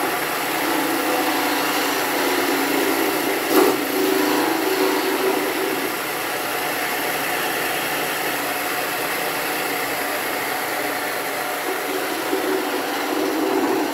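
Homemade belt-and-disc sander running on its one-third-horsepower electric motor, salvaged from an air curtain, with a strip of wood held against it: a steady motor hum under a broad abrasive hiss. One short knock about three and a half seconds in.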